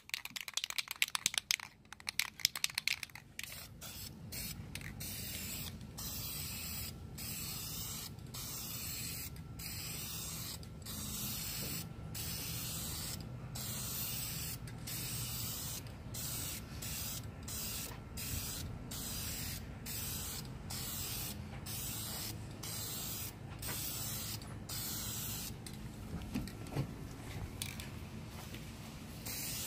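Aerosol spray-paint can hissing in repeated short bursts, with brief breaks between passes. A few sharp clicks come in the first few seconds.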